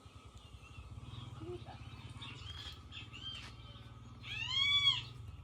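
A few faint chirps, then about four seconds in a single loud bird-like whistled call that rises and falls in one arch and lasts under a second. A low steady hum runs beneath.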